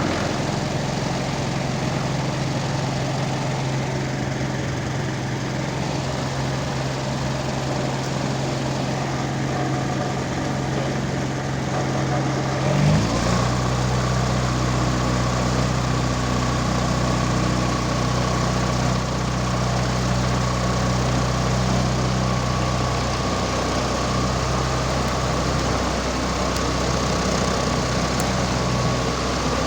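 Propeller engine of a homebuilt wooden light aircraft running steadily at low revs just after start-up. About halfway through the engine speed steps up slightly and then holds steady.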